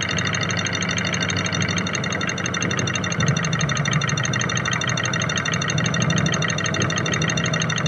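Nissan YD25 common-rail diesel idling, picked up by an acoustic sensor clamped to the injector rail's feed pipe with cylinder three cut out: a steady, rapid clatter in which the injector knock is still audible.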